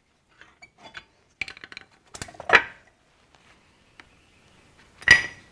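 Flathead screwdriver prying a brake pad out of a disc brake caliper bracket: light metallic clicks and scrapes of the steel pad against the bracket and its clips, with a louder clank about two and a half seconds in and another near the end.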